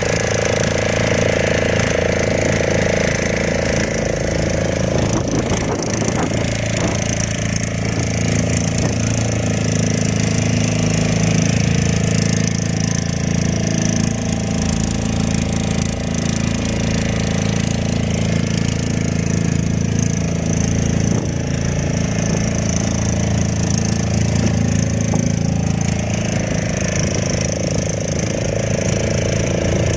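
Fishing boat's motor running steadily at an even pitch.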